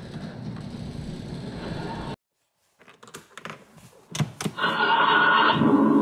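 Steady noise that cuts off abruptly about two seconds in, then clicks of the key switch and buttons on a 24-volt ride-on toy car's console, followed from about four and a half seconds in by a loud electronic pitched sound from the car that runs on.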